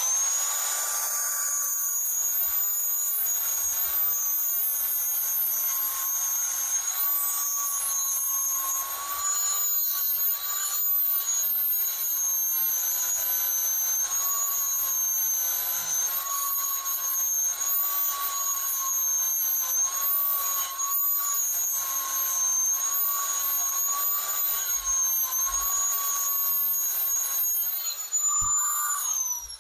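Angle grinder running steadily with a high whine, grinding down weld on the steel toothed sector gear of a car power-window regulator; its pitch wavers slightly as it bites. It spins up at the start and winds down at the very end.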